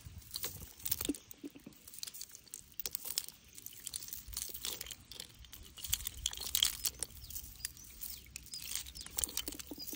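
Hands working through a chain-weighted cast net and picking out the small snails caught in it: irregular small clicks, crunches and rattles of shells, chain links and netting, busiest about six to seven seconds in.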